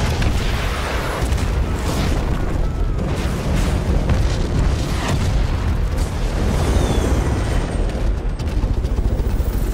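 Rocket strikes from an attack helicopter exploding, several sharp blasts over a heavy, continuous low rumble, in a film battle soundtrack.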